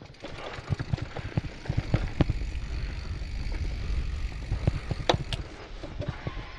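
Mountain bikes rolling past one after another: tyres crunching over the trail, with many short clicks and knocks and a low rumble that swells in the middle.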